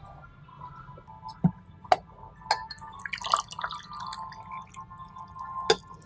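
Tea poured from a teapot into a small glass: the stream trickles and splashes into the glass, with a few sharp clinks of glass and china.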